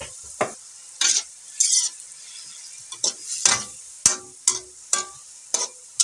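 Metal spatula scraping across a wok as string beans and pork are stir-fried, about a dozen quick irregular strokes, over a steady high sizzle from the pan.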